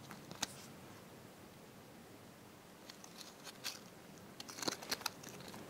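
Faint handling noise of squishy toys being picked up, turned and set down: a soft click about half a second in, then a cluster of light clicks and taps in the second half.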